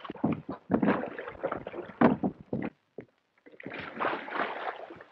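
Oars of a wooden rowing boat splashing in the water and clattering, in a run of irregular strokes. There is a short pause past the middle, then a longer spell of splashing near the end.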